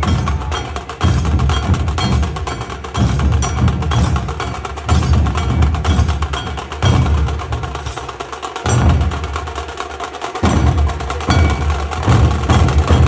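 Loud percussion-driven lezim dance music: heavy low drum beats under a dense clattering rhythm, in phrases that repeat about every two seconds.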